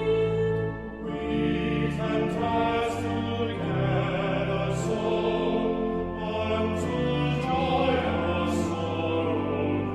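Church music: voices singing over held organ chords with deep bass notes, a hymn or anthem in the service.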